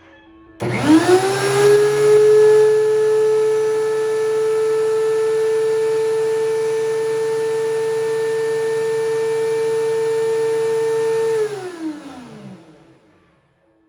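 DeWalt DW735X thickness planer switched on, spinning up quickly to a steady high whine, running steadily for about ten seconds, then switched off and winding down.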